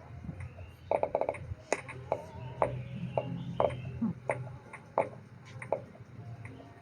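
Irregular short taps and clicks, as of objects being handled, over a low steady hum.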